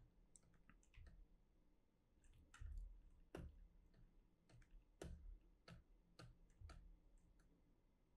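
Near silence with a dozen or so faint, irregular clicks of computer controls being worked.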